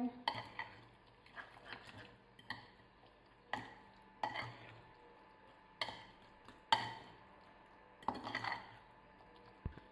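Metal spoon, then fork, stirring guacamole in a ceramic bowl: soft wet scraping broken by irregular sharp clinks of metal on the bowl, roughly one a second, some with a brief ring.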